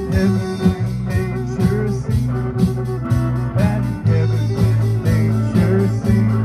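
Band music: a melody over held bass notes and a steady beat of about two hits a second.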